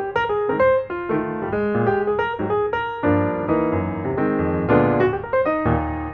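Background piano music: quick runs of notes, turning to fuller held chords about halfway through.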